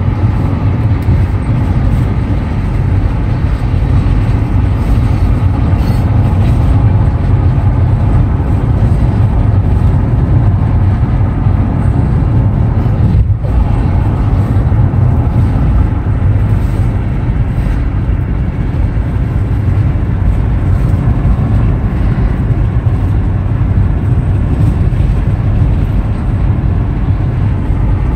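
Steady road and engine noise of a car driving at speed, heard from inside the cabin.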